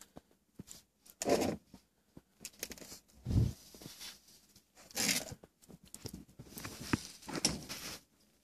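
A seven-week-old Pembroke Welsh corgi puppy chewing and tugging at a fleece blanket: irregular bouts of scraping and rustling a second or two apart, with scattered small clicks and one duller thump about a third of the way in.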